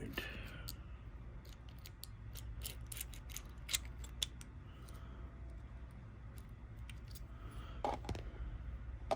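Light metallic clicks and ticks of a Kwikset lock cylinder being handled and fitted back together, scattered and irregular, with two sharper clicks about four seconds in.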